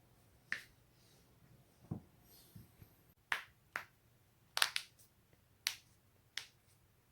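A series of sharp joint cracks, about ten pops at irregular spacing, with a quick run of three about halfway through. One duller, lower knock comes about two seconds in.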